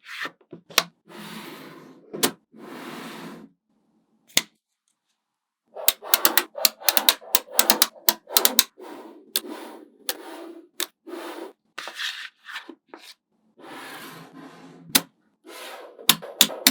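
Small magnetic balls snapping together with sharp clicks, between stretches of rattling and rubbing as handfuls of them are handled. After a short pause, a dense run of clicks starts about six seconds in.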